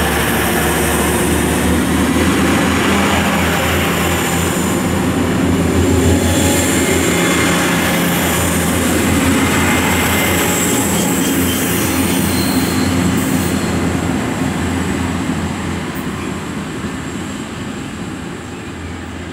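DB class 612 diesel multiple unit running past, its diesel engines giving a steady low drone over the rolling noise of the wheels. The sound fades as the train draws away.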